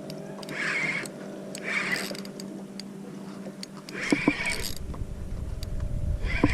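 Fishing reel working while a small shark is fought on light tackle, in short scratchy pulses about a second apart, over a steady low hum that stops about four seconds in, after which a low rumble comes up.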